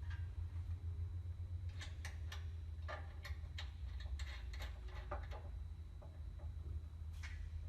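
Scattered light metallic clicks and clinks, irregular, of bolts, nuts and tools being handled against steel brackets during a hardware install, over a steady low hum.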